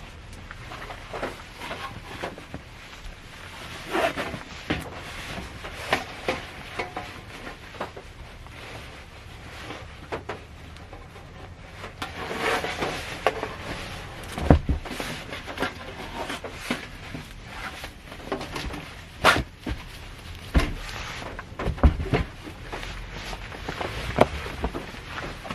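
Irregular knocks, taps and clicks inside a parked car's cabin over a steady background hiss, a few of them louder thuds.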